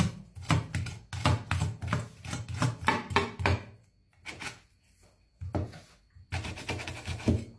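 Broad cleaver-style kitchen knife cutting and scraping along a gilthead sea bream fillet against a wooden cutting board, trimming out the bones. A run of quick strokes, a pause about four seconds in, then more strokes.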